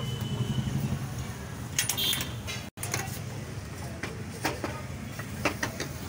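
Cooking at a gas stove: a steady low rumble under sharp clinks and knocks of metal pans and utensils, a cluster of them about two seconds in and single knocks later on.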